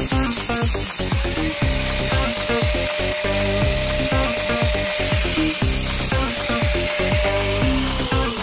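Background music with a steady beat, a high note held for several seconds in the middle, over a continuous rasping, sawing-like noise.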